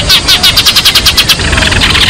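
Sparrows chattering in a fast, unbroken run of chirps, about ten a second, with more birds overlapping from about one and a half seconds in: a sparrow flock call used as a trapping lure.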